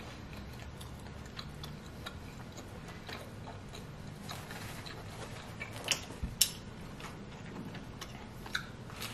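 A person chewing pizza with the mouth closed: soft, scattered wet mouth clicks, with a few louder clicks about six seconds in and another near the end.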